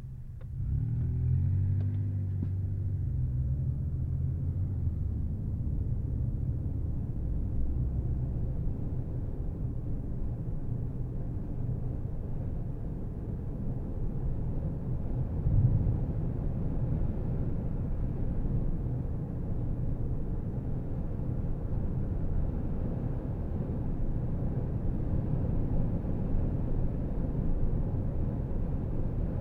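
A car driving: the engine's pitch rises over the first few seconds as it speeds up, then settles into a steady low rumble of engine and tyre noise. One brief thump comes about halfway through.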